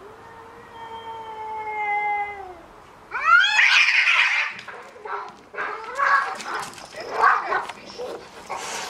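Two cats fighting. First one long, steady warning yowl that sags in pitch as it ends. About three seconds in comes a sudden loud screech as they clash, then a string of shorter, ragged screeches and yowls.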